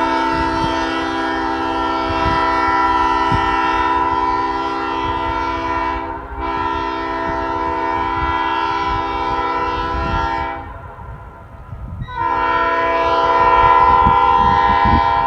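Ex-Norfolk Southern Nathan Airchime P5A five-chime train horn blowing a loud, steady chord. Its #4A bell in place of the standard #4 pitches it slightly higher than a regular P5. It sounds in long blasts: a short break about six seconds in, a pause of about a second and a half past the ten-second mark, then a final blast.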